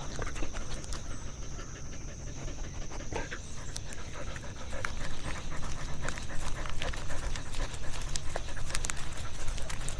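A dog panting fast right at the microphone of a camera strapped to its body, growing louder about halfway through, with scattered light clicks and knocks.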